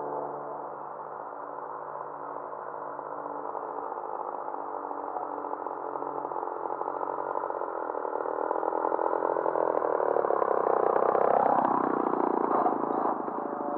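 Sbach aerobatic radio-controlled model plane flying, its motor and propeller droning louder as it comes in low, then passing close about eleven seconds in with the pitch dropping as it goes by.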